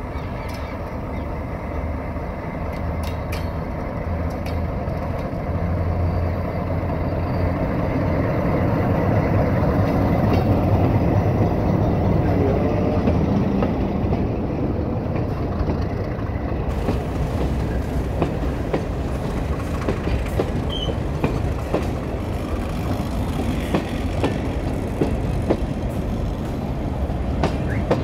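ALCO RSD-39 diesel locomotive running as it approaches and passes, its low drone loudest about ten seconds in. Mineral hopper wagons then roll past close by, their wheels clicking steadily over the rail joints.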